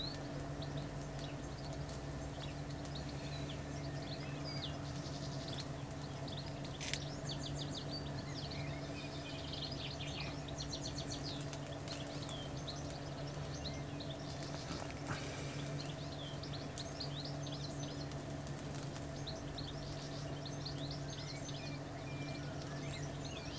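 Small birds singing and chirping, with a steady low hum underneath and a single sharp click about seven seconds in.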